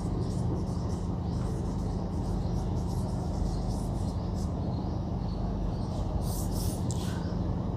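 Felt-tip marker strokes squeaking and scratching on a whiteboard as words are written, over a steady low hum.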